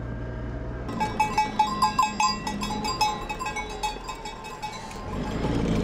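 Bells worn by a flock of sheep clanking irregularly as the animals pass close to a vehicle, starting about a second in and dying away after four seconds, over the low hum of the vehicle's engine, which grows louder near the end.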